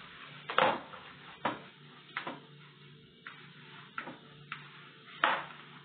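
Dumpling dough being kneaded and pressed by hand in a plastic bowl: irregular thumps and slaps, about six of them, the bowl knocking as the dough is worked.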